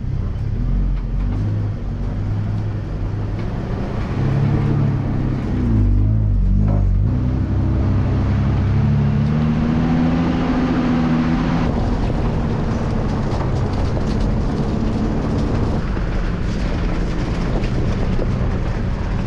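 Toyota LandCruiser 80 series engine running as the four-wheel drive is driven along a rutty dirt track, with steady road and body noise. The engine note climbs from about seven seconds in and drops back again around twelve seconds.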